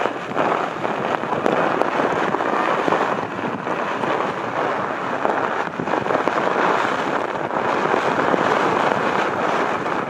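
Strong storm wind blasting across the microphone: a dense, crackling rush that barely lets up, with a brief dip at the start and another about halfway through.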